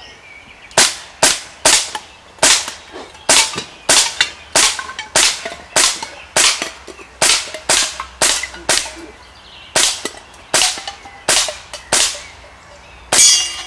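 CO2 gun fired in rapid succession, more than twenty sharp shots at about two to three a second, with a short pause about ten seconds in and a last loud shot near the end.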